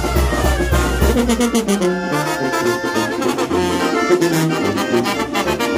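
Live brass band playing: trumpets and trombones over a stepping low-brass bass line. Fireworks crackle and pop under the music, heaviest in the first couple of seconds, with a low rumble that fades out.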